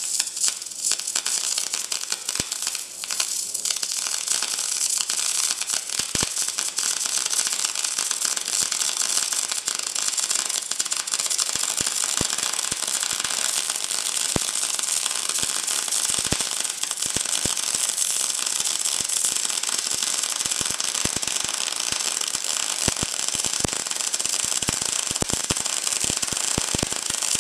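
Electric arc welding on steel plate: the arc crackles and sizzles steadily while a weld bead is run, with a constant dense patter of spatter.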